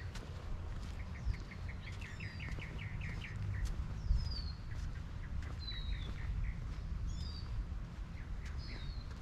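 Small songbirds chirping, with a quick run of clipped notes about two seconds in and several falling chirps after it, over a steady low rumble.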